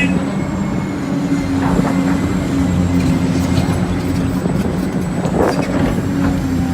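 Heavy construction machine's engine running steadily at a constant pitch, with a couple of brief scrapes or knocks about two seconds in and again around five and a half seconds.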